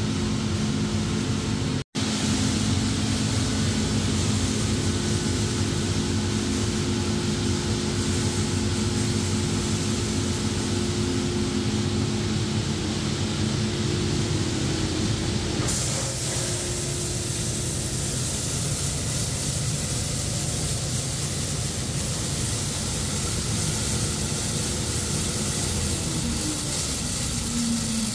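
Coffee roasting machine running steadily with a beans batch inside: a motor-and-fan hum with a low steady whine under a hiss. It cuts out for an instant about two seconds in, and the hiss grows brighter about halfway through.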